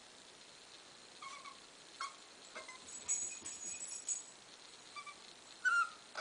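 A young puppy whimpering in short, high whines, several times. The loudest whine, near the end, rises in pitch. About halfway through there is a burst of high, light jingling.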